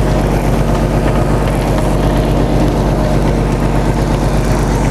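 Fishing boat's engine running steadily with a constant low hum, with wind and water hiss over it.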